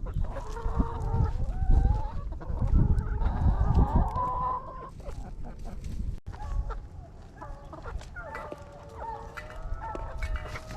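Backyard laying hens clucking and calling to each other, many overlapping drawn-out and short calls, with a low rumble under the first half.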